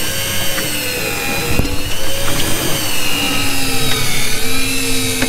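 Daiwa Tanacom 1000 electric reel's motor whining steadily as it winds in line, its pitch wavering slightly, with a single knock about a second and a half in.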